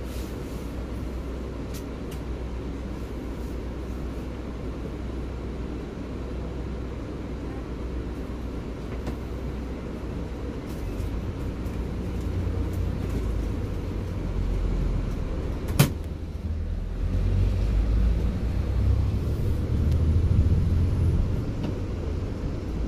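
Coach bus running, a steady low engine and road rumble that grows louder in the second half, with one sharp click about two-thirds of the way through.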